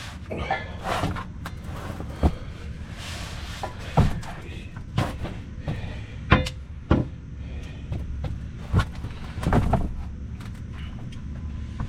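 CURT steel trailer hitch clanking and knocking against the Jeep's underbody and frame as it is wrestled up into position, a series of separate metal knocks at irregular intervals over a steady low rumble.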